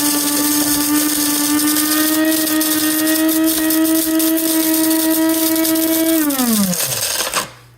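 Cuisinart DBM-8P1 electric burr coffee grinder running as it grinds coffee beans: a steady motor whine over a grinding hiss. About six seconds in the motor winds down, its pitch falling, and it stops about a second later as the timed grind ends.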